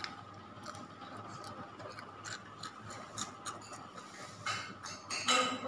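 Small scattered crackles and clicks of crispy battered fried banana being chewed and its crunchy batter crumbs picked at with the fingers in a paper box, with a louder scratchy stretch near the end, over a faint steady hum.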